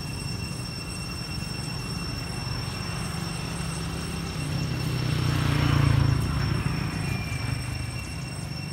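A motor vehicle passing: a low engine rumble that swells to its loudest about halfway through, with a brief rush of tyre hiss, then fades.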